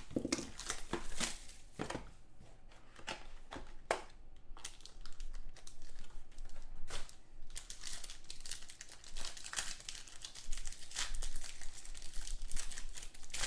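Plastic wrapping on a trading-card box and pack crinkling and being torn open, with irregular crackling rustles as it is handled.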